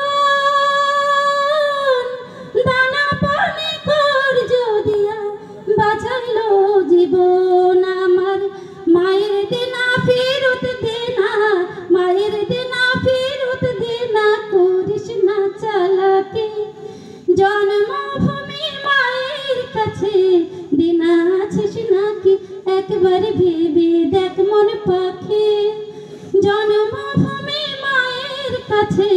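A woman singing a Bengali song solo with no instruments, holding one long note at the start and then carrying a winding melody with sliding notes.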